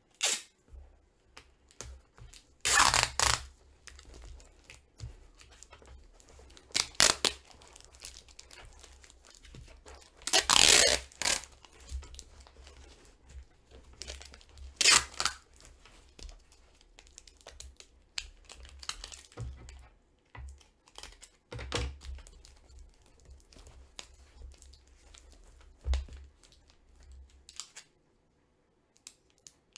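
Clear packing tape ripped off a hand-held roll in several loud rasping pulls, with the rustle and rub of tape being smoothed onto a cardboard box between them.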